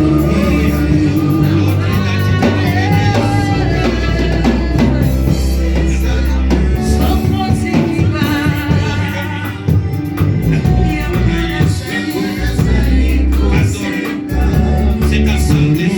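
Gospel music: voices singing over a band with a strong, sustained bass line.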